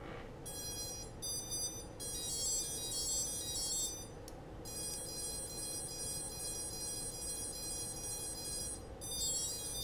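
ESC calibration tones beeped through the brushless motors of a DIY-X210v3 racing quad after the battery is connected with the throttle set to full. There are several short beep phrases, then a long held tone from about halfway, then more beeps near the end, signalling the ESC throttle-range calibration.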